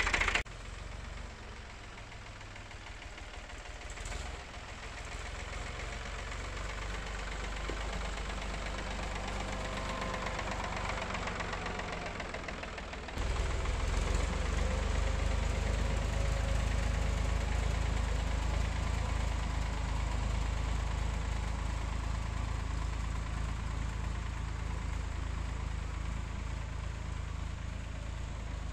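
Vehicle engine running, building gradually and then jumping louder and deeper about thirteen seconds in.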